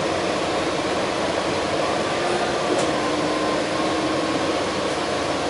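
Steady cabin hum inside a New Flyer XD60 articulated diesel city bus: the bus's engine and air conditioning running, with faint steady tones over an even rush of noise.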